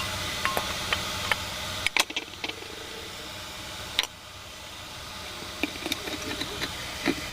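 Light metallic clicks and taps over a steady hiss, as the parts of a ceiling fan are handled during a bearing repair. The background hiss drops abruptly about two seconds in and again about four seconds in.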